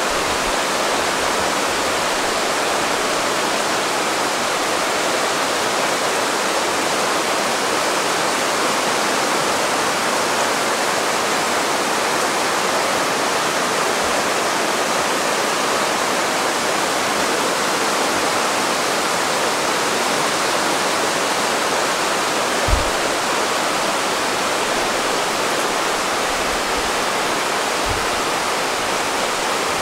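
Steady rushing of fast-flowing mountain stream water, with one brief low knock about three-quarters of the way through.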